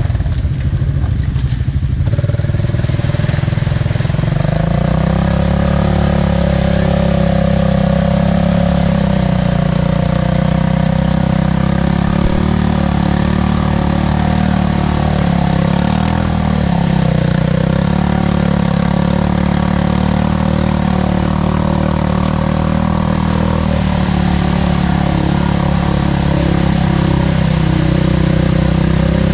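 ATV engine running at a steady speed, its pitch settling after a few seconds and dipping briefly about halfway through.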